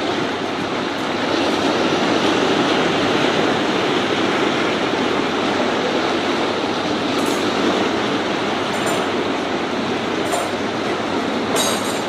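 Small sea waves washing over a flat rocky shore: a steady rushing wash that swells and eases, with a few brief high clicks in the second half.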